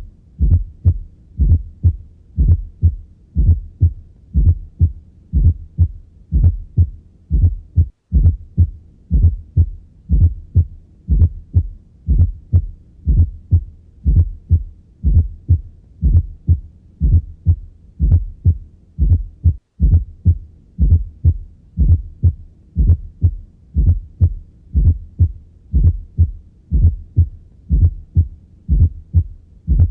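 Stethoscope recording of a regular heartbeat, a steady rhythm of low thuds with an extra soft beat just before the first heart sound: a fourth heart sound (S4, atrial gallop). This sound reflects a stiff, poorly compliant ventricle. The recording cuts out briefly twice, at about 8 and 20 seconds in.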